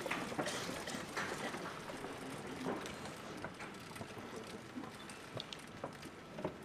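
Quiet open-air hush over a parade ground, broken by scattered faint clicks and knocks of sabres being handled as ranks of cadets bring them up to the salute.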